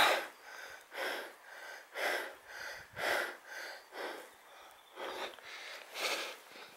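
A hiker's heavy breathing, short hard breaths about twice a second: panting from the exertion of a steep, rocky climb.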